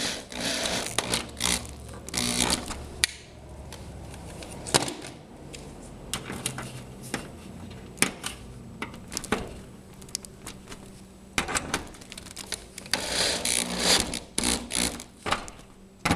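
Bolts being tightened into a replacement steel garage door hinge: bursts of rapid clicking from the tool, with scattered sharp metal clinks.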